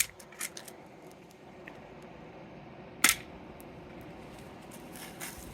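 P22 airsoft pistol firing: one sharp, loud snap about three seconds in, with a shorter click at the start and a few faint clicks of handling around it.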